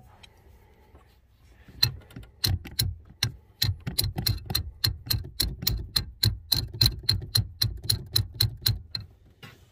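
Quick, even series of light hammer taps on metal, about four a second, starting about two seconds in and stopping near the end, each with a short ring: tapping the upper steering shaft coupling home onto its splines until it seats.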